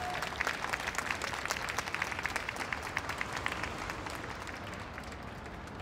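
Crowd applauding with many hands clapping, thinning out and growing quieter toward the end.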